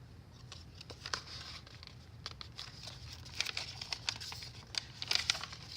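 Paper pages and tags of a handmade junk journal being handled and turned: irregular rustling and crinkling with small ticks, busier in the second half.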